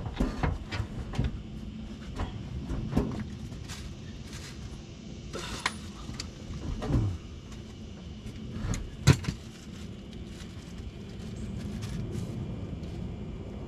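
Scattered knocks, clinks and scrapes of metal parts and tools being handled while fitting a car's fuel tank straps and bolts, with a short scrape about seven seconds in and one sharp clank just after nine seconds.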